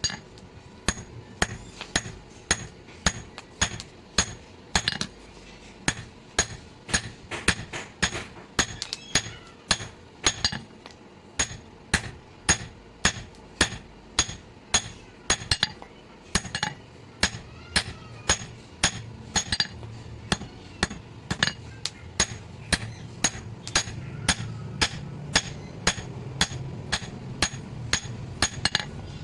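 Blacksmith's hammer striking steel on an anvil in a steady rhythm of about two blows a second, each blow with a bright metallic ring. A low hum builds underneath in the second half.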